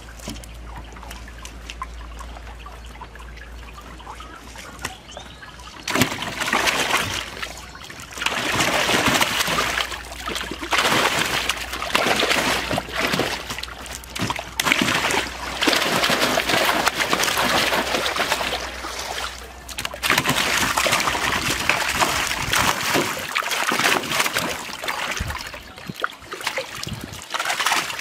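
Large carp thrashing and splashing in shallow water in a tarp-lined boat hold, in loud irregular bursts starting about six seconds in; before that only faint sounds.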